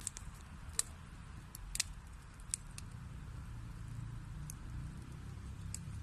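Wood fire burning in a fireplace: a steady low rumble of flames with sharp pops and crackles of burning wood, a handful of them, the loudest about a second and two seconds in.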